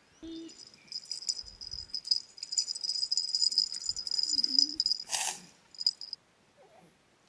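Hand-held baby's rattle with small bells being shaken, a steady high jingling from about a second in until about six seconds, with one louder burst just after five seconds.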